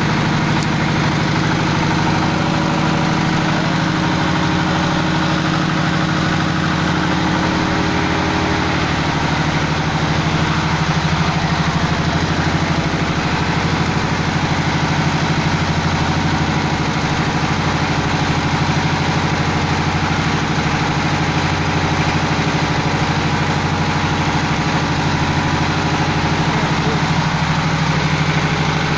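Engine-driven fish-feed pellet machine running steadily, with an even mechanical hum and no change in speed.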